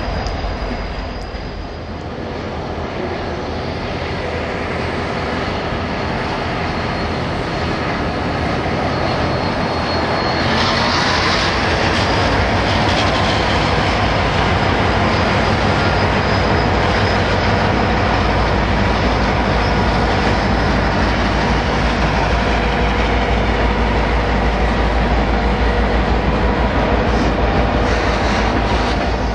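A freight train moving through a rail yard: wagons rolling on the rails with a thin, high wheel squeal at first. A diesel locomotive's engine hum grows louder over the first ten seconds or so, then runs steadily.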